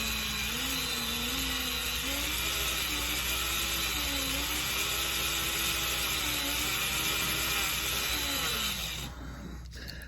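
Cordless drill spinning a Norvise auto-bobbin spool, winding thread onto it. The motor's whine wavers up and down in pitch, then winds down and stops about nine seconds in.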